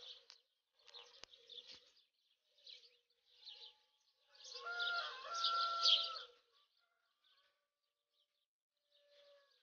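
Faint bird calls, coming intermittently. The longest and loudest call is about two seconds long and falls about halfway in.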